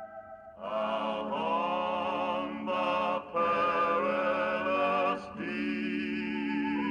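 Background music: a soft held chord, then from about half a second in, choir-like voices holding long, slightly wavering notes with a few short breaks.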